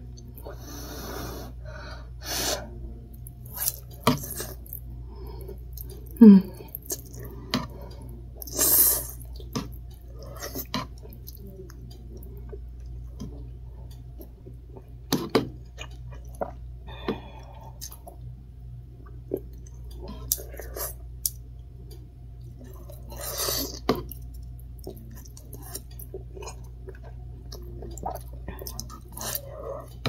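A person slurping instant ramen noodles and chewing. Several loud slurps are spread through, with sharp clicks of chopsticks against the noodle cup in between.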